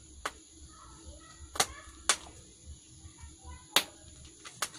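Wood fire crackling in a cooking stove, with five sharp pops at irregular intervals, and faint short clucks from a live chicken being held.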